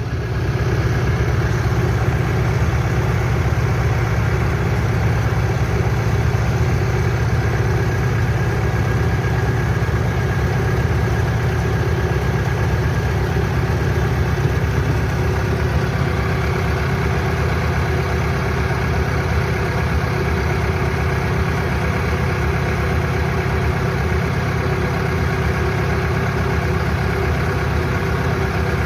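Heavy farm machine's engine idling steadily at an even speed.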